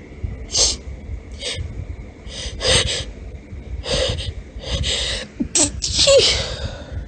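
A woman sneezing repeatedly in high-pitched, girly sneezes, with gasping, hitching breaths between them. There are about seven short, sharp bursts, and the loudest come near the end.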